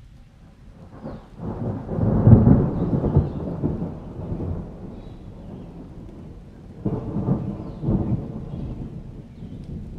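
Thunder rumbling over rain. A long deep rumble builds about a second and a half in and fades over the next few seconds, and a second, shorter rumble comes about seven seconds in.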